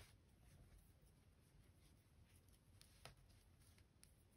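Near silence: faint room tone, with a soft click at the start and another about three seconds in.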